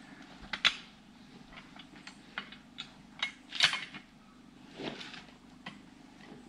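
Irregular sharp clicks and knocks, with the loudest about half a second in and again a little past the middle, over a faint steady low hum.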